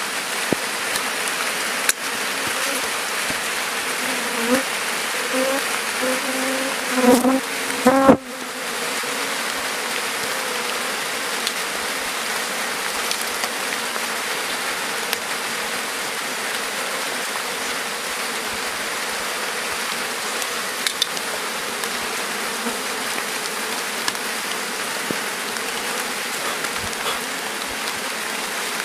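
A colony of honeybees buzzing in a dense, steady hum around their exposed wild comb, stirred up by the honey harvest. About seven seconds in, a louder pitched drone and a few knocks come briefly, ending in an abrupt break.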